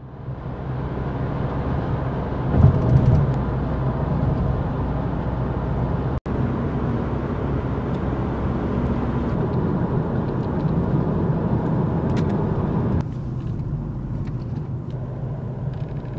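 Car driving, heard from inside the cabin: a steady low rumble of engine and tyre-on-road noise. There is a split-second gap about six seconds in, and the noise eases to a quieter level about two-thirds of the way through.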